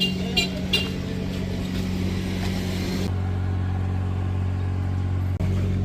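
A bus engine running steadily at a low, even hum, with three short clicks in the first second.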